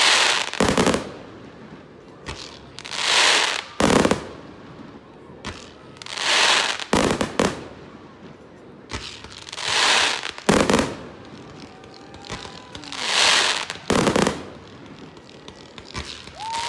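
Aerial fireworks display: a loud crackling hiss and a sharp bang come about every three and a half seconds, five or six times in a row.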